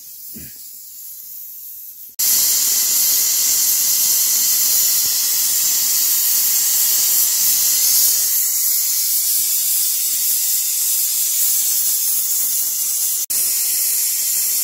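A pressure cooker venting steam. About two seconds in, a loud, steady hiss starts suddenly through its whistle valve, the sign that the masoor dal inside has come up to pressure. The hiss breaks off for an instant near the end and then carries on.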